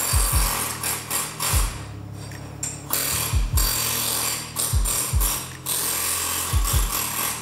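Handheld pneumatic tool run in bursts against a steel part clamped in a vise, with a short pause about two seconds in. Background music with a deep thudding beat plays underneath.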